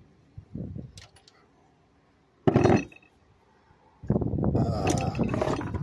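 Handling noise from the partly dismantled snow blower: a few faint clicks, a single sharp clunk about two and a half seconds in, then a busier stretch of knocking and rubbing near the end.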